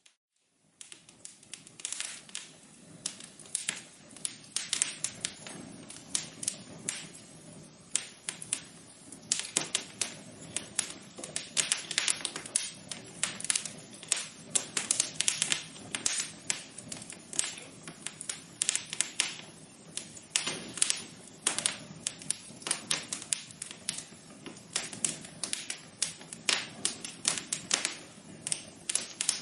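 Wood fire crackling in a fireplace: a dense, irregular run of sharp pops and snaps over a soft hiss. It starts after a brief gap of near silence at the very beginning.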